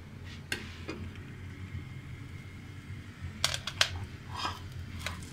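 Sharp clicks and clatters from a covered metal pot of popcorn on the stove as its lid is gripped with a cloth, the loudest pair about three and a half seconds in, over a steady low hum.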